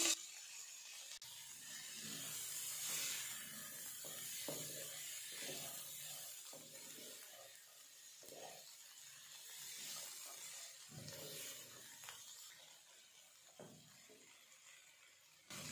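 Wooden spatula stirring and scraping vegetables around a non-stick wok, faint irregular strokes that stop a few seconds before the end.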